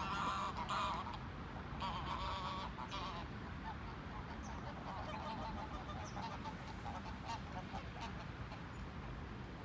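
Geese on a lake honking and cackling. The loudest bursts of calls come in the first three seconds, then softer chattering continues.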